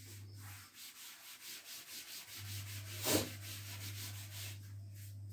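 Blackboard duster rubbing chalk off a blackboard in rapid back-and-forth strokes, about four a second, with one harder stroke about three seconds in.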